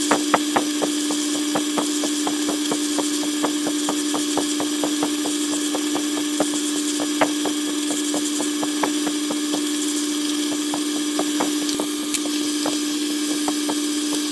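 Metal lathe drilling a half-inch brass bar with a 5/16-inch twist drill from the tailstock chuck, heard sped up ten times: a steady hum with rapid, irregular ticking throughout.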